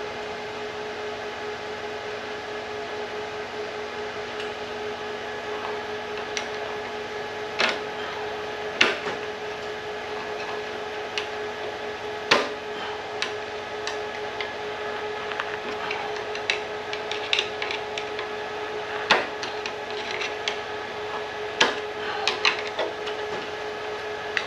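Steady hum of a fan making a terrible noise, under scattered sharp metallic clicks and clinks as a roller chain is worked into place on a reel mower's drive.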